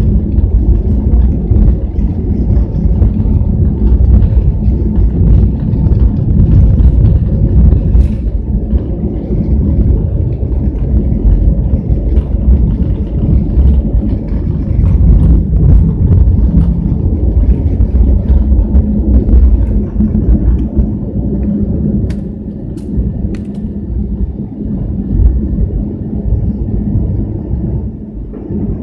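Airliner cabin noise: engines and rushing air give a loud, steady low rumble with a faint steady hum over it, easing somewhat over the last several seconds.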